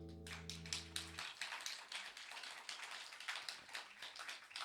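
A final acoustic guitar chord rings on and is cut off about a second in, while a small audience applauds with scattered, uneven claps.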